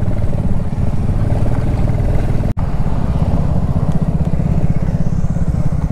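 Royal Enfield Classic 350's single-cylinder engine running steadily while riding, a fast, even low pulse, with a momentary dropout about halfway through.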